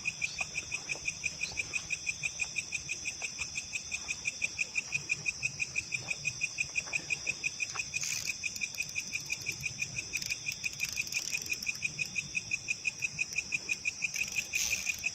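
Insects chirping in an even, rapid pulse of several beats a second over a continuous high-pitched insect drone.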